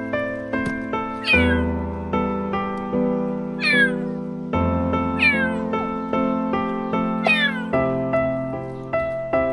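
A kitten meowing four times, each a short cry that falls in pitch, over background music.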